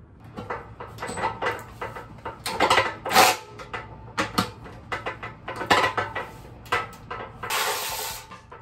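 Metal parts and hand tools being handled: a run of clinks, knocks and rattles, the loudest about three seconds in, then a brief rushing, scraping noise near the end.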